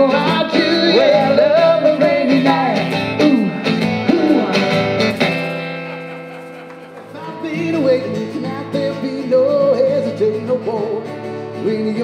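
Live country song with a man singing over a strummed acoustic guitar. The song fades out about six seconds in, and another song for voice and guitar fades in.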